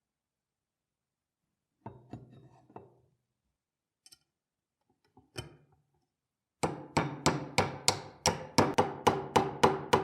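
A fast, even run of hammer blows, about four or five a second, each ringing briefly; it starts about two-thirds of the way through. Earlier there is a short clatter of parts being handled and a single knock.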